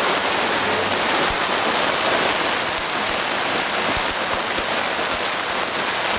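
Heavy rain falling steadily on roofs and paved ground, a dense, even hiss of a downpour.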